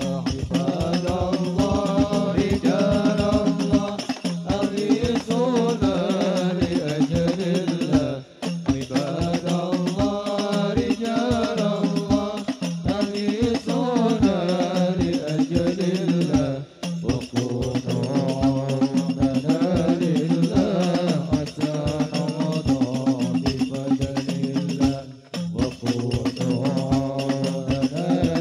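A hadrah ensemble performing sholawat: men's voices singing a devotional melody into microphones over a steady beat of rebana frame drums. The music drops out briefly three times between phrases.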